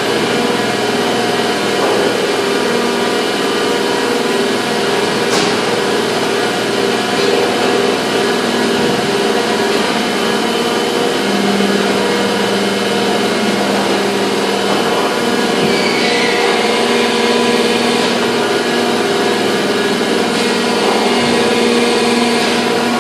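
Industrial machinery running steadily and loudly, a dense mechanical din with several fixed humming tones. A sharp click comes about five seconds in and a short falling squeal around sixteen seconds.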